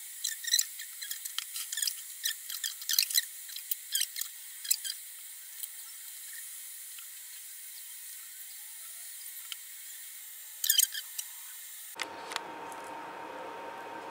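Thin, sharp clicks and taps of wet eggplant halves and a silicone spatula being handled in glass dishes. The clicks come thick for the first few seconds, then sparse, with a short flurry near the end. After that comes a steady room hum with a faint tone and one soft knock.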